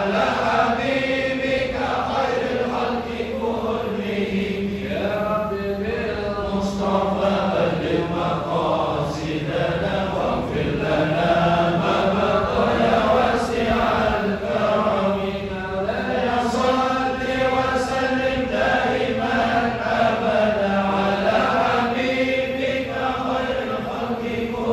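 A congregation chanting together in unison: a continuous devotional Islamic recitation carried on many voices in a steady melodic line.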